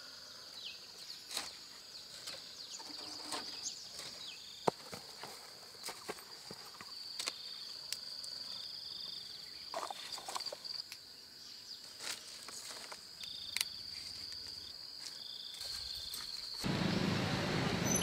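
Steady high-pitched insect drone with scattered sharp clicks and rustles. About three-quarters of a second before the end, a louder, fuller noise suddenly takes over.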